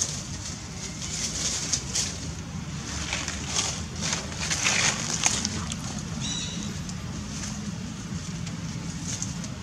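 Dry fallen leaves crackling and rustling in irregular bursts as macaques move about on the leaf litter, with one short high squeak about six seconds in, over a steady low rumble.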